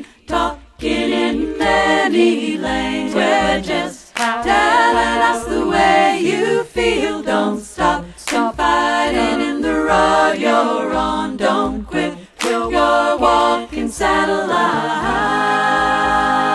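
A cappella vocal group singing in harmony over a pulsing low bass line. About fifteen seconds in, the voices settle onto a long held chord.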